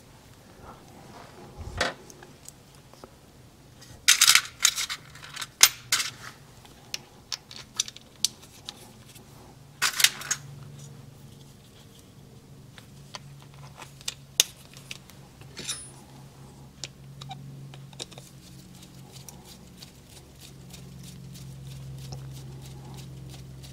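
Small metal parts being handled and fitted on an aluminium motorcycle crankcase: scattered clicks and taps, with louder clusters about four to six seconds in and again at ten seconds. Near the end a screwdriver works the switch's screws, over a faint low hum.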